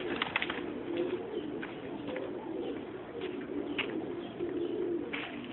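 A flock of domestic pigeons cooing, a low wavering coo that goes on without a break, with a few short sharp clicks among it.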